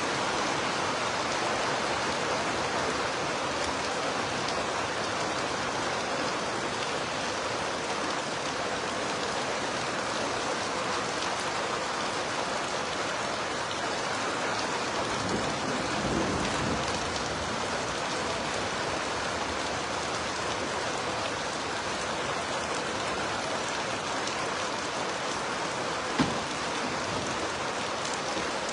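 Heavy rain falling steadily, with one sharp knock near the end.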